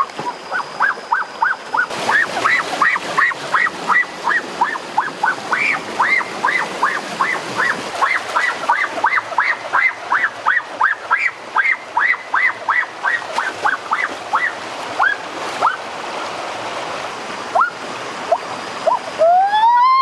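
A rapid series of short, honking calls, about three a second, over the steady rush of stream water. The calls thin out about fifteen seconds in. Near the end comes a single long cry that rises and then falls.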